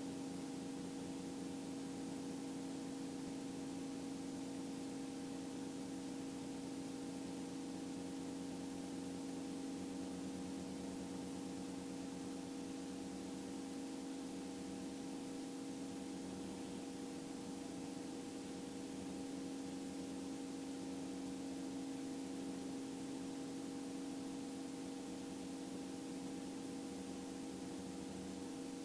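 Faint, steady hum with a few held tones over a light hiss: the Robinson R44 II helicopter running on the ground.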